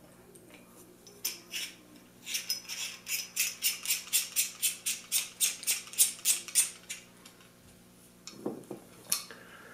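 Hand-turned arms of a Feiyu Tech a1000 gimbal: a rapid, regular run of small hard clicks, about four or five a second, stopping near seven seconds, with a few more clicks shortly before the end.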